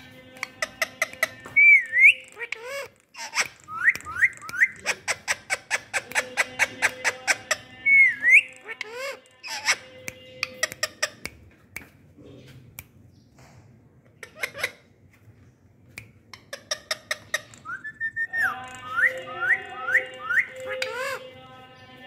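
Caged Alexandrine parakeets calling: runs of sharp clicks with short rising whistles, busiest at the start and again near the end, quieter in between.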